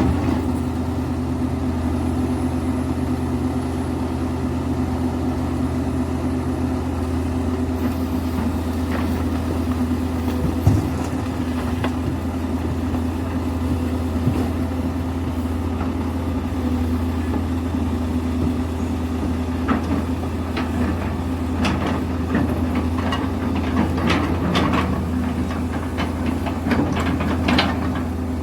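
Link-Belt excavator's diesel engine running steadily at an even low pitch. A single sharp knock comes about eleven seconds in, and a scatter of sharp clicks and knocks comes through the last third.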